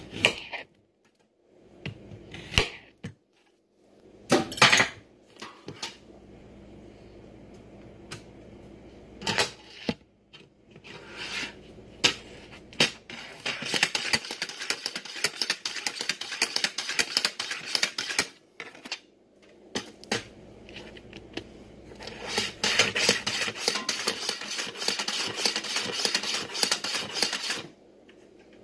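Zucchini being sliced on a white plastic mandoline-style slicer: two long runs of rapid scraping clicks as the squash is pushed back and forth over the blade, in the second half. Before them come a few separate sharp knocks of a knife trimming the zucchini.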